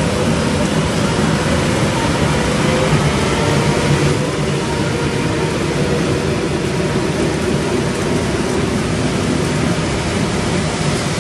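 Double-deck electric regional train rolling past at low speed: a steady rumble with a low electric hum from its traction equipment, under an even hiss.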